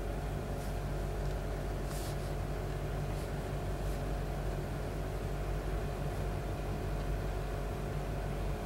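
Steady low mechanical hum with an even hiss, as from a fan or appliance running in the room. A few faint brief rustles come in the first half.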